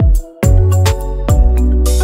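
Background music with a steady beat: deep kick-drum hits and bass under held chords, with cymbal hiss.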